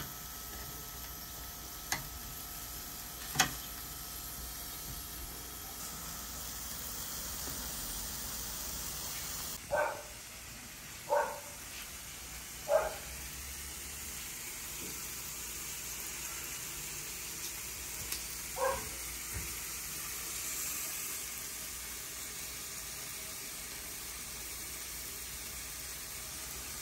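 Pork belly sizzling on a round slotted Korean barbecue grill plate, a steady hiss, with two sharp clicks of the metal tongs in the first few seconds. A dog barks three times about a second and a half apart, and once more a few seconds later.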